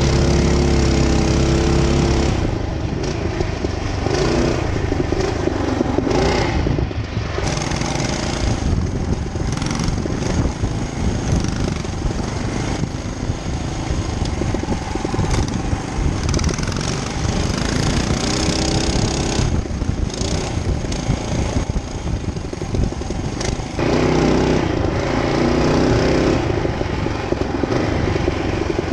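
Mega Moto 212 mini bike's 212cc single-cylinder engine running hard on the trail, its pitch rising and falling with the throttle. It is strongest in the first two seconds and again from about 24 seconds on.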